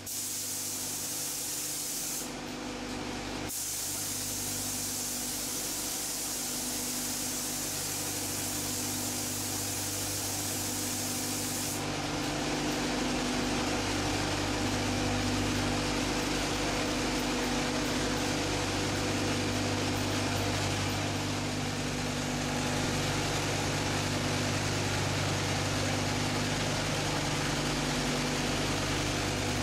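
Pneumatic paint spray gun hissing as it sprays car body paint, pausing briefly about two seconds in, over a steady low machine hum.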